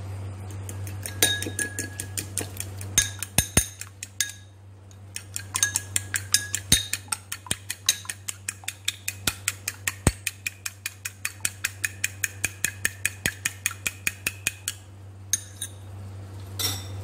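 A metal fork beating egg yolks in a ceramic bowl: rapid, even clinks of the tines against the bowl, about six a second. The clinking breaks briefly about four seconds in and stops a couple of seconds before the end. A steady low hum runs underneath.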